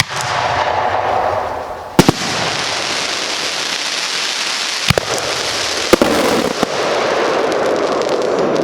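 Fireworks going off: a sharp bang at the start, then a steady rush of noise with further sharp reports about 2, 5 and 6 seconds in.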